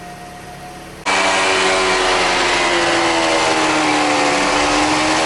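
Toyota Esquire (ZRR80) CVT gearbox humming with the wheels turning on the lift, picked up through a mechanic's stethoscope. It starts as a faint steady tone; about a second in it turns suddenly much louder into a hum of many tones whose pitch sags slightly. The hum comes from a failing reduction gear inside the CVT.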